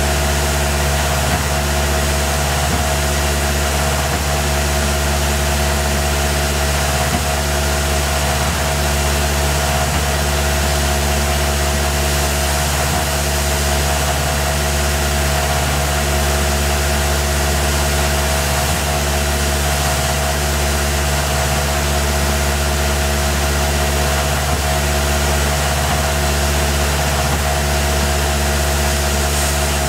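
Tormach PCNC 1100 CNC mill running steadily, its spindle giving a constant whine over a low hum, while a small tool mills a 4140 steel muzzle brake held in the 4th-axis chuck.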